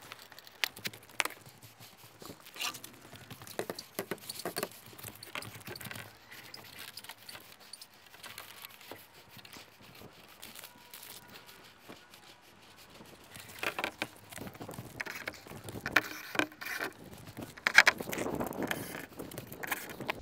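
Irregular clicks, taps and knocks of metal solar-panel mounting hardware and tools being handled on the roof, with louder clusters of knocks near the end.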